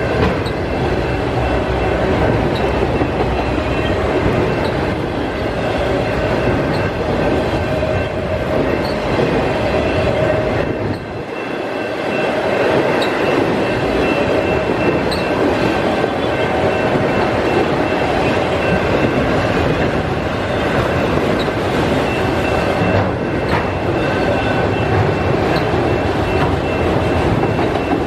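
Freight train of enclosed autorack cars rolling past: a steady, loud rumble of steel wheels on the rails, with thin, steady high ringing tones and occasional faint ticks over it. It dips briefly about eleven seconds in.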